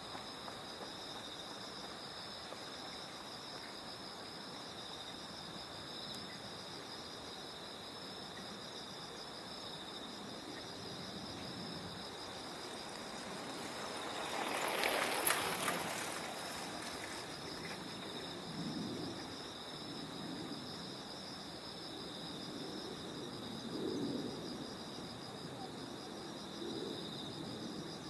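Night insects trilling steadily at two high pitches. About halfway through, a broad rush of noise swells up over a few seconds and fades away again.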